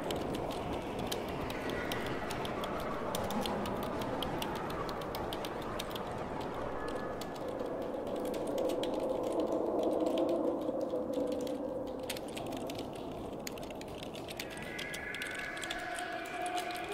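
Two people typing fast on computer keyboards: a dense, steady clatter of keystrokes, with a faint wavering drone underneath.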